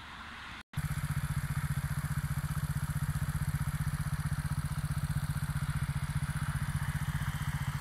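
Beta Alp 200's single-cylinder four-stroke engine idling with a steady, even beat, after a short break in the sound near the start.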